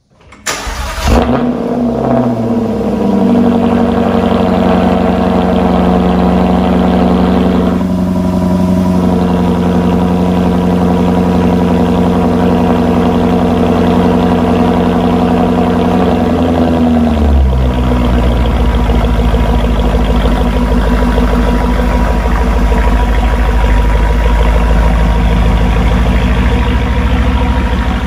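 Jaguar XKR-S GT's 5.0-litre supercharged V8 cold-starting through its quad exhaust: it catches with a short rev flare, then runs at a high, steady cold fast idle. About seventeen seconds in the pitch drops and it settles into a lower, deeper idle.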